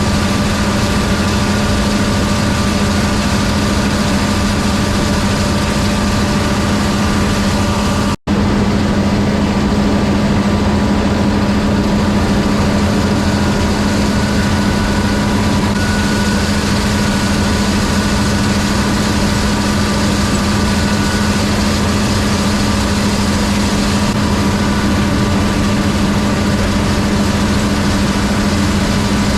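Gleaner combine running steadily at harvest: a constant engine hum with the whir of its machinery, cutting out for an instant about eight seconds in.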